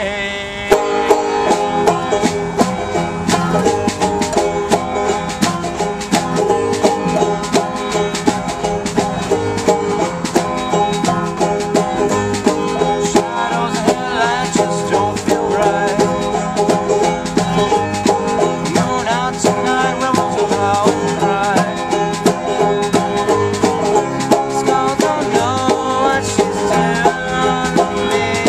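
Small acoustic band playing a bluegrass-style tune: acoustic guitar and banjo picking over a steady hand drum beat.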